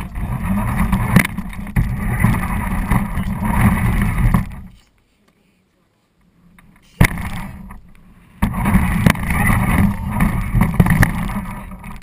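RC car running: a rumbling rush of motor and wheel noise that stops about five seconds in. A single sharp knock follows about two seconds later, and the running noise starts again about three and a half seconds after that.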